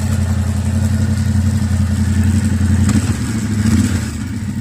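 Yamaha Ténéré 700's parallel-twin engine running steadily, with a sharp click about three seconds in. The owner hears an annoying noise from the front sprocket area, though chain and tension have been checked.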